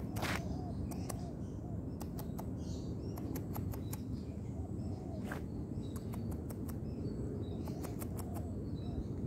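Small birds chirping briefly over irregular footsteps along a path, with a steady low rumble on the microphone.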